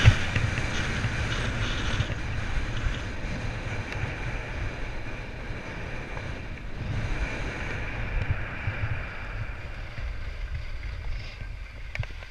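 Skis hissing and scraping over groomed snow on a downhill run, with wind rumbling on the action camera's microphone; a single sharp knock right at the start.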